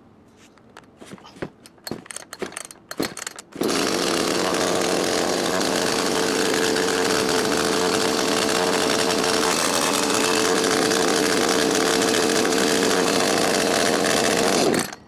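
Echo CS-310's 30.5cc two-stroke chainsaw engine being pull-started with the choke pushed back in: a few short rattling pulls, then it catches about three and a half seconds in and idles steadily for about eleven seconds before stopping abruptly near the end.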